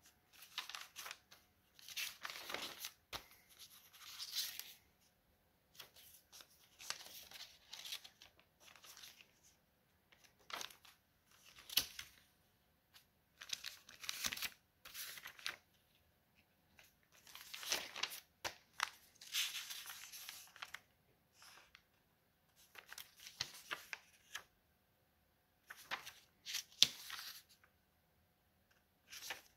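Paper rustling in short bursts as paper flaps and index-card flaps glued into a notebook are lifted and the pages turned, with a sharper paper snap near the end.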